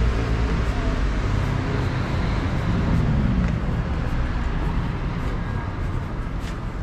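City street traffic: a motor vehicle engine rumbling past, loudest at the start, with another engine's note falling in pitch about three seconds in, and the traffic gradually quieter toward the end.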